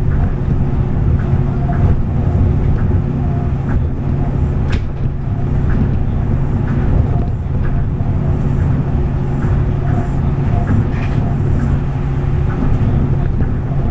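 Steady low running rumble of a Tokyo Monorail train, a rubber-tyred straddle-beam monorail, heard from inside the moving car. A faint steady hum sits under it, with a few small clicks and one sharper click about five seconds in.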